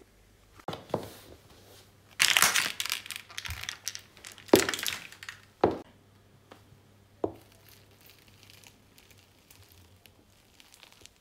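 A shoe sole pressing down on soft objects on a hard floor, first a lump of modelling clay, then foam-bead slime. It makes crushing, crackling sounds: a dense run of crackles about two seconds in, then a few single crunches, growing sparse after about seven seconds.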